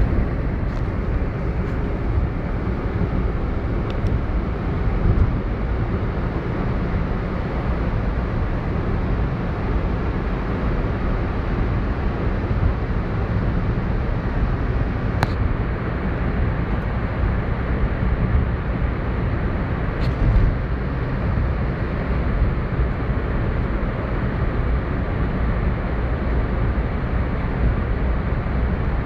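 Steady rumble of a car driving at speed, heard from inside the cabin: engine and tyre noise, strongest in the low end. Two faint ticks come about halfway through.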